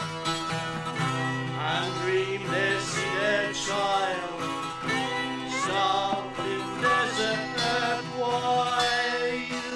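Instrumental passage of acoustic psychedelic folk music: plucked acoustic guitar with a wavering melody line over it and a low note held for most of the passage.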